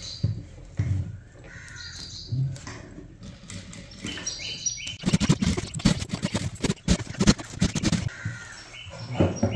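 Crows cawing several times. From about five seconds in, a sewing machine stitches for about three seconds in a fast, even run of needle strokes.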